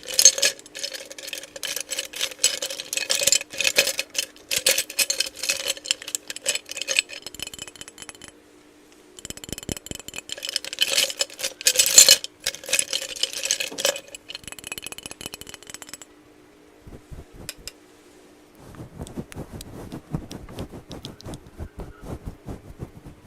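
Close, fast rattling and clinking of small hard cosmetic packaging being handled and shaken, in two long runs about eight and five seconds long. After that come a few sparse ticks, then softer, duller tapping and rubbing.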